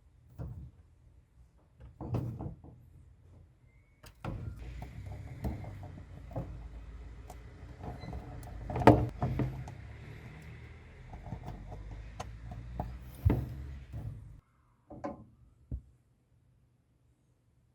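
Scattered knocks, clunks and clicks of hard objects being handled, the sharpest knock about halfway through, over a steady low rumble that starts about four seconds in and cuts off suddenly near three-quarters of the way through.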